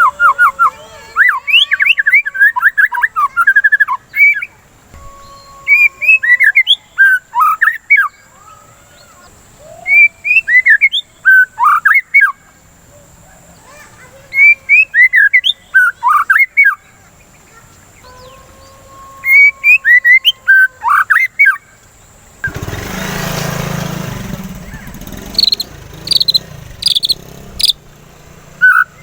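White-rumped shama (murai batu) singing in bouts of fast, varied whistles and trills, with short pauses between phrases. About three-quarters of the way through, a rushing noise covers a couple of seconds.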